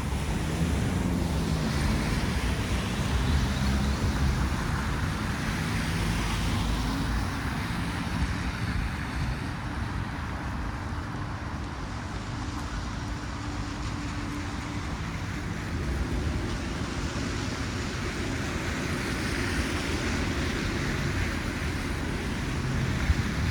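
City street traffic running steadily, with vehicles swelling past a few seconds in and again near the end, over wind rumbling on the microphone.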